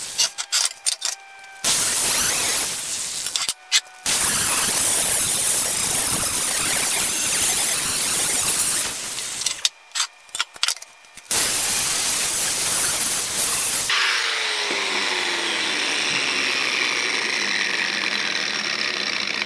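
Angle grinder grinding a too-high weld ridge down on a steel plate: a loud hissing grind in several long stretches, each stopping suddenly. About fourteen seconds in it gives way to a duller, steadier running sound with a falling whine.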